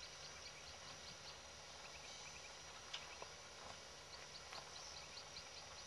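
Faint, distant low rumble of the train's GE diesel locomotives (a class 33 and two class 35s) moving slowly. A bird chirps in short high notes, about four a second, and there are a few faint clicks.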